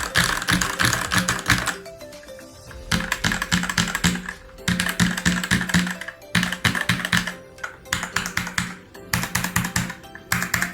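Fantech MK853 mechanical keyboard with red switches being typed on in quick runs of keystrokes. There are about six runs of one to two seconds each, with short pauses between them. Background music plays underneath.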